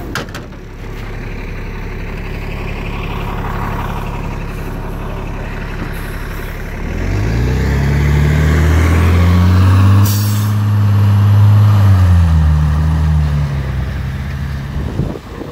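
New Flyer D40i city bus with a Cummins ISL inline-six diesel idling at the stop, then pulling away. The engine revs up with a rising pitch, and there is a short air hiss about ten seconds in. The pitch drops as the Allison automatic transmission shifts up, and the sound fades near the end as the bus drives off.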